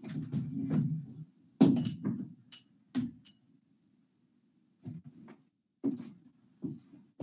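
Whiteboard eraser rubbing across the board for about a second, followed by a series of separate knocks and thuds, with a quiet gap in the middle.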